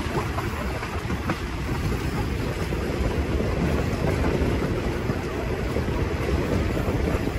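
Passenger train running at speed, heard from on board by the window: a steady rumble of wheels on the track mixed with wind rushing across the microphone.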